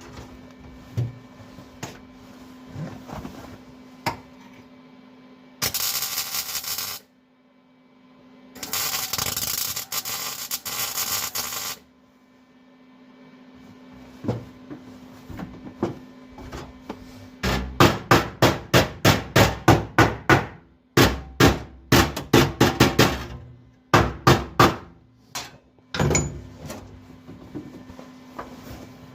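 Two bursts of welding on a sheet-metal floor patch, one about a second long and one about three seconds, then a long run of quick hammer blows on the sheet metal, about three a second, banging the patch down, with a few more blows near the end.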